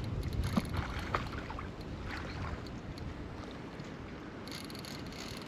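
Wind rumbling on the microphone with faint water noise and a few light clicks in the first couple of seconds.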